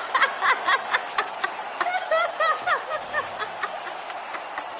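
A high-pitched giggling laugh in quick repeated bursts, over music.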